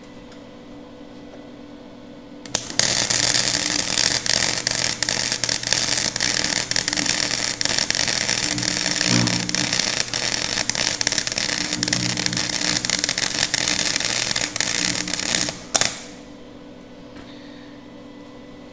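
Nagano MIG 130 gasless flux-core MIG welder running a bead on steel plate: the arc crackles and spatters steadily, starting about two and a half seconds in and cutting off near the end. The wire feed has just been turned up a notch past 5–6, which the welder then judges slightly too fast.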